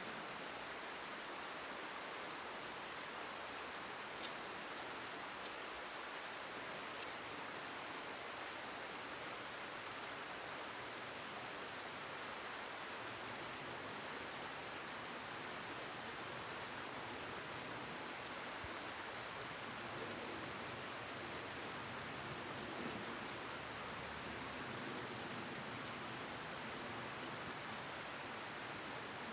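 Steady, even rushing of a flowing river, with faint rustling and a few light clicks about two-thirds of the way through.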